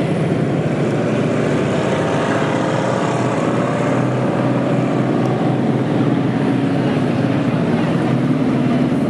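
Engine of a WWII US half-track with a quad .50 anti-aircraft gun mount running steadily as it drives slowly past close by.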